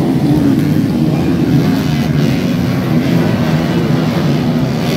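Several grasstrack racing motorcycles running together on a dirt track, their engine notes overlapping in a loud, steady drone.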